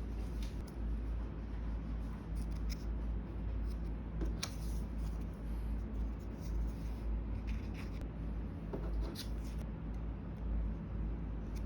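Close-up handcraft sounds while building a miniature: craft materials being cut and handled on a work surface, with scattered short clicks and scrapes over a steady low room hum.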